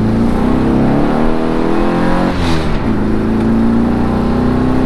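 VW Fastback's air-cooled flat-four engine accelerating hard from a turn, heard from inside the cabin. The revs climb, drop sharply for a gear change about halfway through, then climb again.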